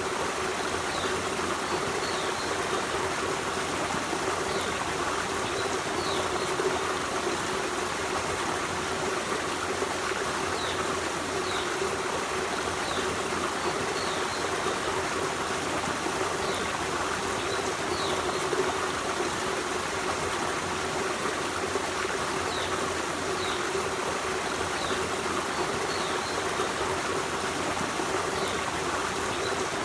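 Forest stream running steadily over rocks, a continuous even rush of water. Short, high falling chirps sound faintly now and then.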